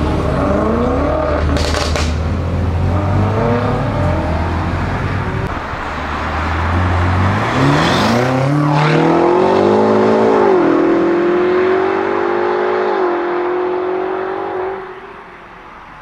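BMW M5 F90's twin-turbo 4.4-litre V8, tuned to about 750 hp, accelerating hard: the revs climb, drop with upshifts about ten and thirteen seconds in, hold high, then fade away near the end. Sharp exhaust cracks about two seconds and eight seconds in.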